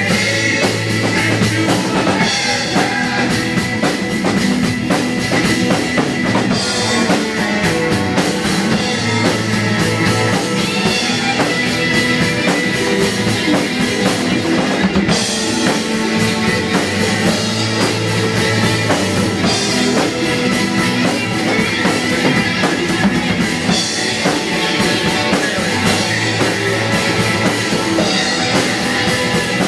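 Acoustic drum kit played along to a rock song recording, with kick, snare and cymbals over the band's guitar and bass.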